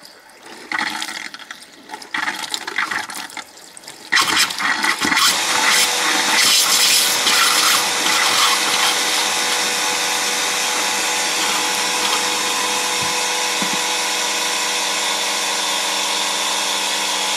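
RV bathroom faucet blown out by the Floë drain-down system's compressed air. It sputters and spits water and air irregularly at first. About four seconds in it settles into a loud, steady rush of air and water with a hum underneath, as the pressurized line empties through the tap.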